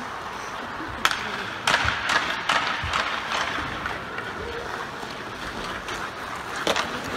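Ice hockey play: skates scraping on the ice, with a handful of sharp clacks of sticks on the puck and the puck on the boards, most of them in the first three seconds and one near the end.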